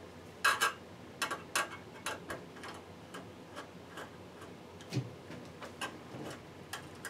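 Light, irregular clicks and taps of Romex cable and its wires being handled and fed into a metal electrical box, with the sharpest clicks about half a second in.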